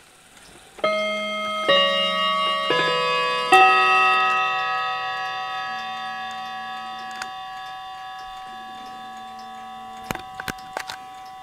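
A chiming clock plays four chime notes, each a little under a second apart, which ring on together and fade slowly. A few light clicks come near the end.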